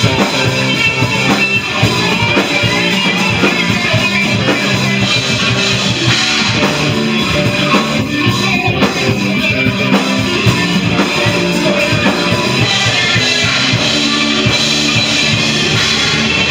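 A rock band playing live: electric guitar, electric bass and drum kit.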